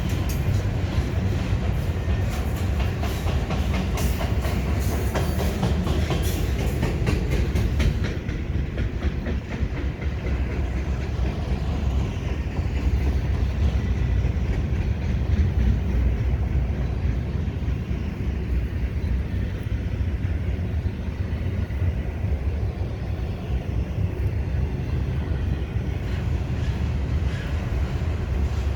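Cars of a freight train rolling past, wheels clicking over the rail joints with a heavy rumble. About eight seconds in the clicking thins out and a steadier rumble carries on.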